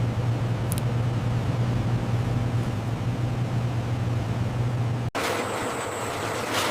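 A motor or engine running with a steady low hum. About five seconds in it cuts off abruptly to a brighter, hissing mechanical noise with a few short clicks.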